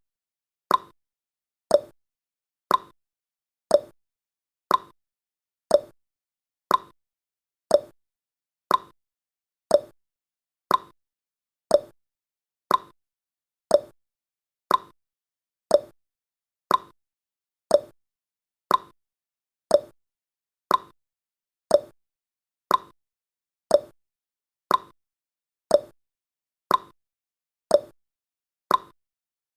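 Clock-tick sound effect of a countdown timer: a short, sharp tick once a second, evenly spaced, with silence between the ticks.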